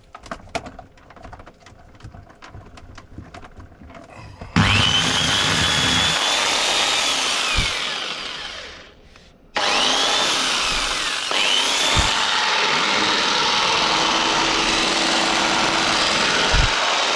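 Small electric jigsaw being test-run after its broken power cable was trimmed and rejoined. A few seconds of light clicking, then the motor starts with a rising whine and runs for about three seconds before winding down. It stops briefly and then starts again and runs steadily.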